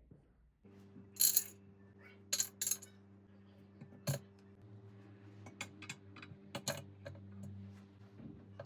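A series of sharp clinks of small hard objects against kitchenware, the loudest in the first half, over a steady low hum.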